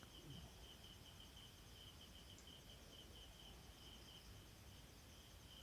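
Near silence: room tone with a faint high-pitched chirping that pulses several times a second.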